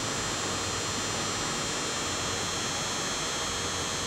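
Steady hum and hiss of running machinery, with a few faint steady tones held under it.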